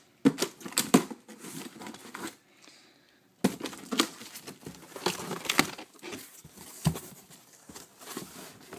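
Cardboard shipping box being handled and opened by hand: irregular crackling, scraping and rustling of the cardboard, in clusters, with a short lull about three seconds in and a sharp crackle as it resumes.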